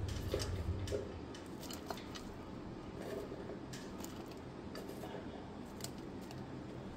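Sliced onions dropped by hand into a metal pressure-cooker pot of raw beef pieces: light, irregular rustles and soft ticks as the slices land and shift.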